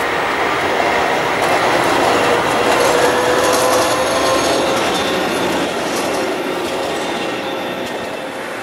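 An Athens light-rail tram passing close on street track. The wheel-on-rail noise rises to its loudest about three seconds in, with a faint whine and a few light clicks, then fades as the tram moves away.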